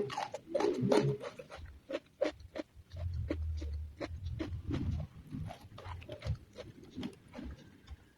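Close-miked chewing: a person eating with the mouth near the microphone, with many short crisp crunches and wet, low mouth sounds.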